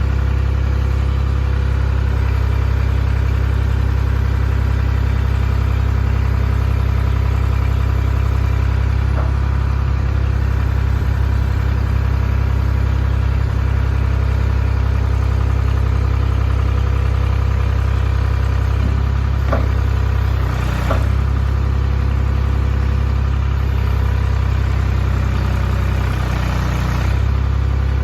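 Ford 555B backhoe's engine idling steadily, with a few short knocks, two of them close together about two-thirds of the way through.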